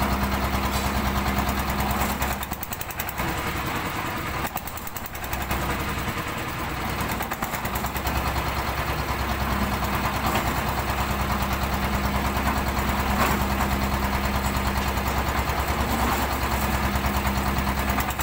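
Engine of a one-bag concrete mixer running steadily with an even chugging beat; it drops briefly in level about three seconds in, then runs on steadily.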